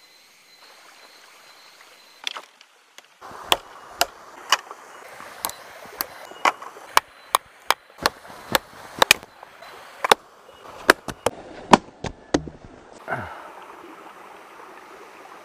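Wood being chopped: a series of sharp strikes, roughly two a second for about nine seconds, over the steady rush of a stream.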